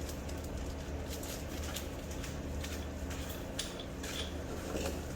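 Light clinks and rustling as new axle parts and their packaging are handled and taken out of the box, over a steady low hum.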